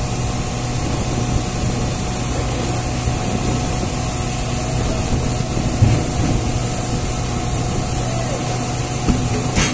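Steady low machine hum, with dull thuds of sengon logs dropped from the top of the truck, about six seconds in and again near the end.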